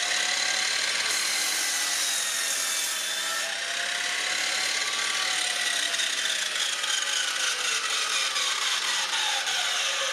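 Belt-driven miter saw, its 32-tooth blade spun at about 3000 RPM by a VFD-driven motor, running with a steady whine. The pitch wavers a little in the first half and sinks slowly near the end.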